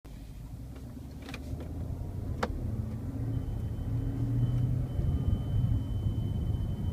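Inside a slow-moving 2011 BMW X5 xDrive50i, low engine and road rumble grows louder, with a couple of sharp clicks early on. About halfway in, a faint high-pitched steady tone sets in: the beeping whose source is unknown and which seems to come from the front console and glovebox area.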